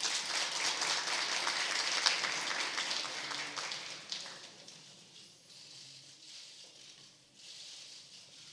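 Audience applauding, a dense patter of clapping that dies away about four seconds in.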